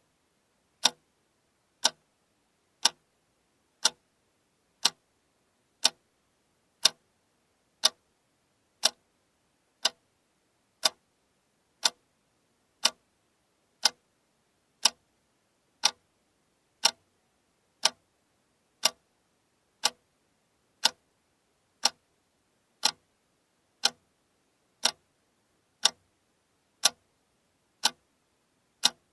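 Alarm clock ticking steadily, one sharp tick every second.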